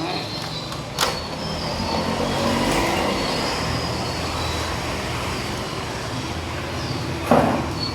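Steady rumble of traffic-like noise with faint high squeals, broken by two sharp knocks, about a second in and again near the end.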